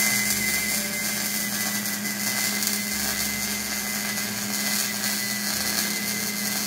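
Wire-feed (MIG) welder running a steady arc on the steel frame rail of a Ford F-150, a continuous hiss with a low hum, welding a patch over rust repair coated in acid-etch primer rather than weld-through primer.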